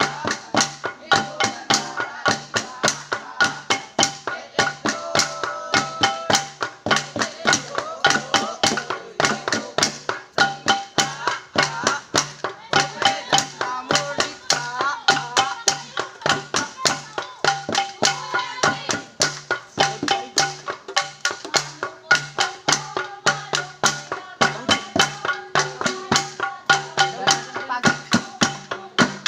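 Ifugao gong ensemble beaten in a steady, quick rhythm, about three strikes a second, the gongs ringing on between strokes. Voices rise over the gongs at times.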